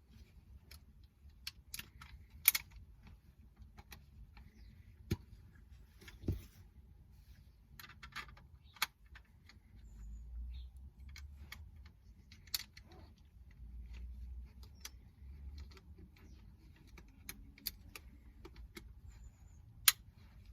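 Scattered sharp clicks and taps of a small plastic action-camera mount and camera being handled and fitted together, about a dozen in all, with two low rumbles near the middle.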